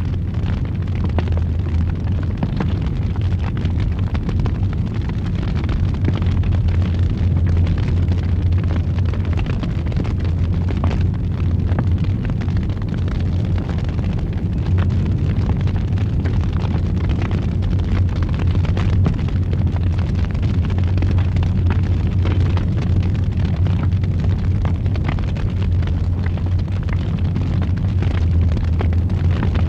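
Fireplace fire burning with a steady low roar, with frequent small crackles and pops from the burning wood.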